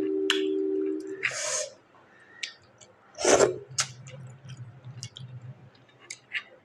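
Close-miked eating sounds: wet mouth clicks and smacks while chewing, with two sharp, airy breaths or sniffs. A steady hum runs for about the first second and then stops.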